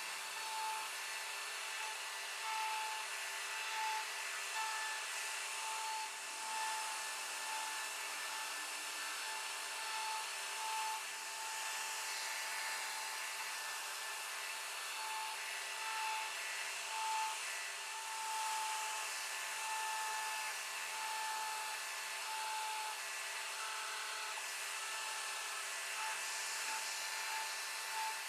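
CNC router spindle running steadily while the bit cuts into an MDF board. A high tone in it keeps dropping out and returning.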